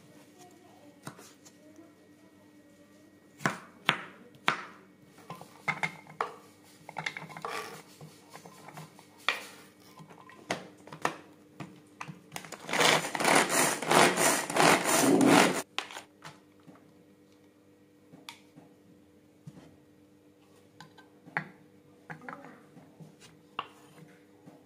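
Pull-cord manual food chopper whirring in quick strokes for about three seconds in the middle, its blades chopping onion in the plastic bowl. Before and after it come scattered knocks and taps of a knife and the plastic chopper being handled on a wooden board.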